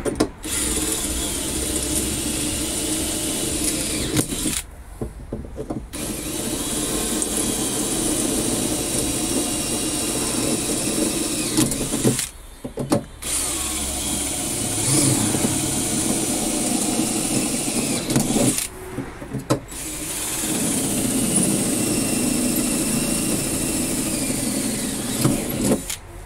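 Cordless drill running in four long stretches of several seconds each, with short pauses between, drilling holes into the vehicle floor for the ramp's rivets.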